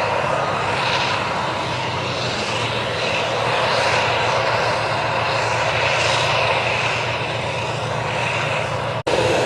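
Large bulldozer's diesel engine and machinery running steadily under a low hum, broken by a brief dropout about nine seconds in.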